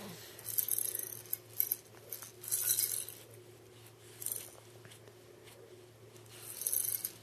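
A baby's handheld rattle shaken in short, irregular spells, about five times, with quiet gaps between.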